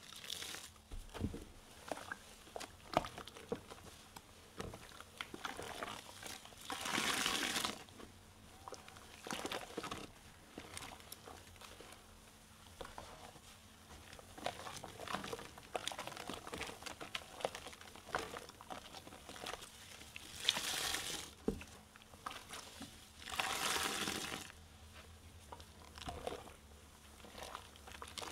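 Soap-soaked car sponges squeezed by hand: a continuous fine crackling and squishing of foam, with three longer, louder wet squeezes.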